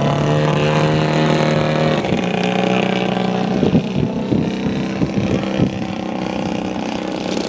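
Quadra 35 two-stroke gasoline engine of a quarter-scale RC Nieuport 17 running at low throttle as the model lands, its note stepping down about two seconds in. A few short thumps come through the middle as it settles onto the grass and rolls out.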